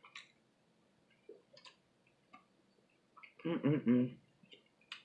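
Small wet mouth clicks and smacks of someone chewing food close to the microphone, with a short hummed murmur about three and a half seconds in.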